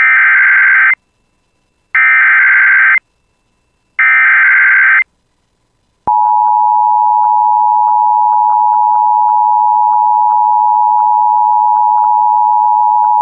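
Emergency Alert System header: three one-second bursts of screeching digital SAME data tones, about a second apart. About six seconds in, the steady EAS attention tone starts and holds.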